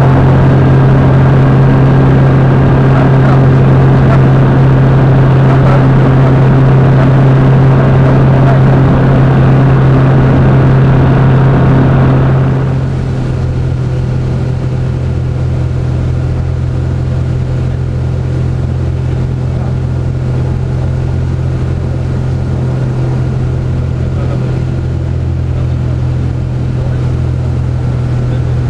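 Light sport aircraft's piston engine and propeller droning steadily, heard inside the cockpit in cruise flight. About twelve seconds in the drone becomes quieter and duller.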